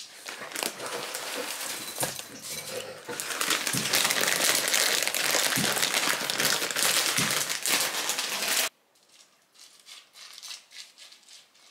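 A plastic cereal bag crinkling as it is handled and folded shut, growing louder about three seconds in and cutting off suddenly near nine seconds.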